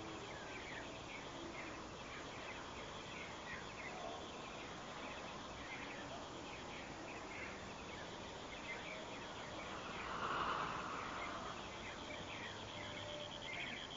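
Garden birds chirping: many short, quick descending chirps throughout, over a steady high pulsing insect trill. A brief louder rushing sound swells about ten seconds in.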